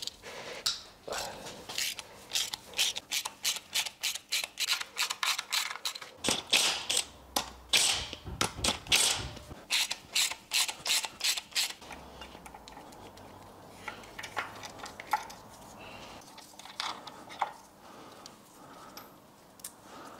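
Hand ratchet clicking in a steady run of strokes, about two or three clicks a second, as bolts on the diesel engine's timing-chain end are undone; after about twelve seconds it gives way to fainter scattered clicks and taps of tools and parts.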